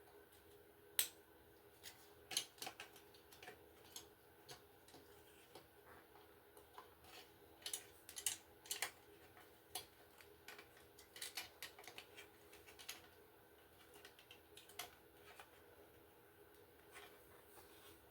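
Faint, scattered clicks and taps of a Guardion FB-1 smoke alarm's housing being handled while a battery is fitted, with a sharper click about a second in. The alarm gives no chirp on power-up.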